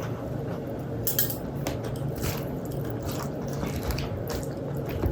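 Close-miked, wet squishy eating sounds of soft rice mixed with mashed boiled okra and tomato, with small irregular clicks.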